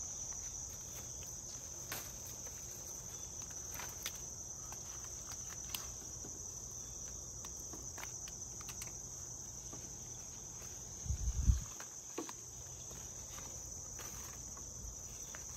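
Insects chirring in one steady, unbroken high-pitched drone. A few faint clicks come through, and there is a short low thump about two-thirds of the way in.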